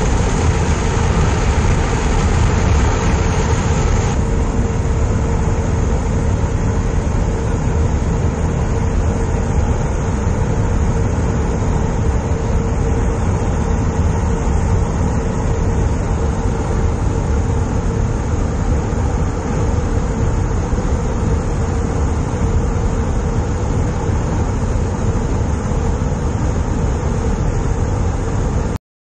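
Steady, loud drone of an aircraft's engines heard from on board, with a steady hum running through it. It cuts off suddenly near the end.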